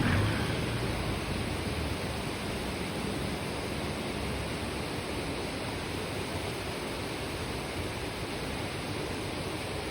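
Shallow stream murmuring over rocks, a steady even rush of water. A low rumble fades away in the first second or two.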